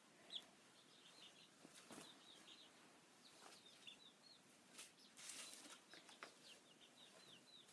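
Faint, short, high chirps from a young, nearly full-grown chicken, coming in small runs, with a few soft feather rustles.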